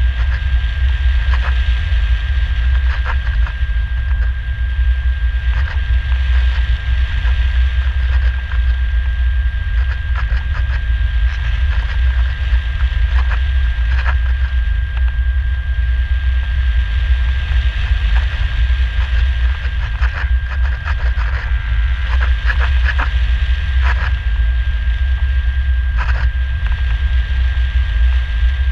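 Wind rushing over the onboard camera of a Radian Pro RC electric glider in flight: a heavy, steady rumble with a thin high whine held on one pitch throughout and scattered light clicks.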